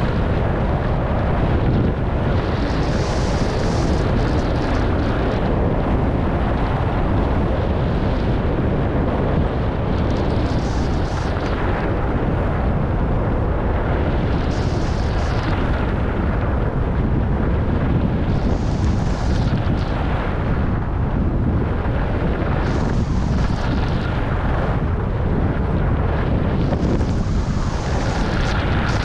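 Steady wind rush buffeting the microphone of a skier moving downhill, with the skis hissing across groomed snow in turns about every four seconds.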